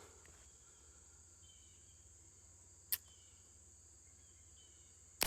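Quiet woods with a steady faint high insect drone and a single sharp click about three seconds in. Near the end comes one sharp shot fired at a wounded buck, a crack that rings out and fades over about a second.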